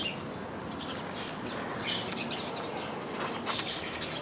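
Small birds chirping now and then, several short high chirps over a steady background hiss.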